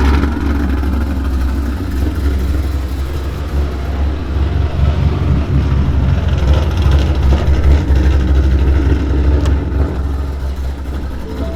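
Ford Mustang 5.0 V8 with a Lund ghost cam tune and American Racing headers, idling loud and deep with an uneven lope: the rough idle that a ghost cam tune is made to give.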